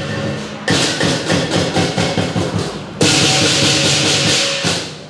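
Lion dance percussion band playing: a big drum beaten in fast, dense rolls with cymbals crashing loudly, once near the start and again about three seconds in, and a ringing gong underneath; it drops away near the end.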